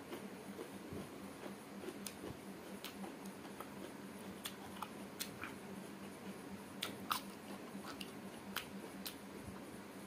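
Close-miked eating sounds: irregular wet mouth clicks, lip smacks and chewing as someone eats meat curry and rice by hand.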